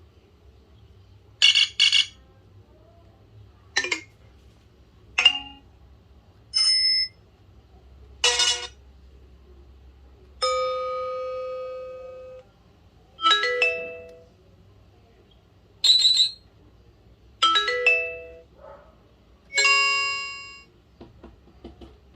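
BlackBerry Curve 8900 alert tones playing one after another: about a dozen short electronic chimes and beeps, each different and separated by a second or so of quiet. One of them is a held tone of about two seconds, near the middle.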